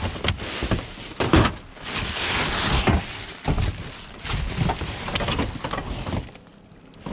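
Rubbish being rummaged through by gloved hands in a dumpster: plastic bin bags and wrapping rustling and crinkling, with irregular knocks and thuds of items being shifted. It dies down about six seconds in.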